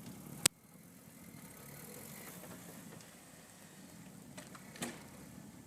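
Faint, steady rumble of a Jeep's engine as it creeps forward through deep snow, with one sharp click about half a second in.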